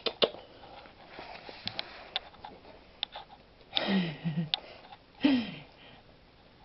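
A puppy sniffing, with small clicks and ticks, and two short snuffling sounds that fall in pitch about four and five seconds in.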